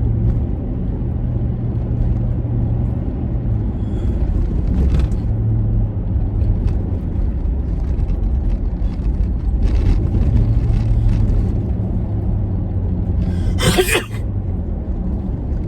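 Steady low rumble of a moving car heard from inside the cabin, with a single loud sneeze near the end.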